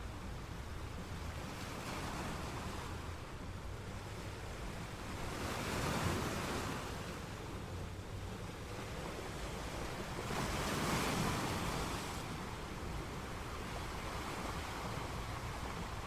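Ocean waves breaking against shore rocks: a steady wash of surf with two louder surges, about six and eleven seconds in.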